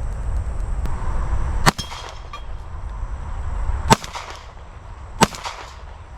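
Three single shots from a Glock 17 Gen 5 9mm pistol, unevenly spaced, each with a short trailing echo.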